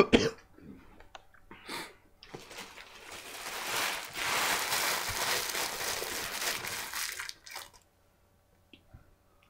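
Paper food wrapper being crumpled and crinkled for about five seconds, starting about two seconds in, after a few small rustles and clicks.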